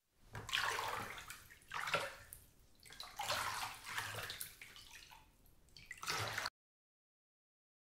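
Water poured from above over a small doll, splashing on its head and onto a concrete step, in several uneven spells, then cutting off suddenly about a second before the end.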